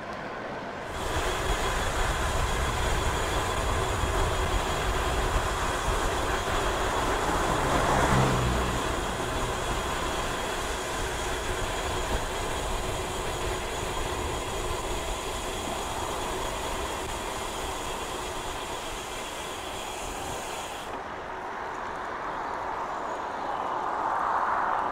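Wind and tyre noise from a road bike moving at speed on tarmac: a steady hiss with a low hum, getting louder about a second in, swelling around eight seconds in, and losing its hiss about twenty-one seconds in.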